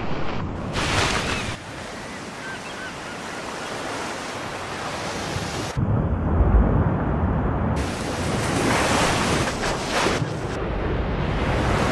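Rushing water and surf with wind buffeting the microphone, spliced from several clips so that the sound changes abruptly about one and a half and six seconds in. For about two seconds after the second change it turns muffled, with heavy low noise, before open surf noise returns.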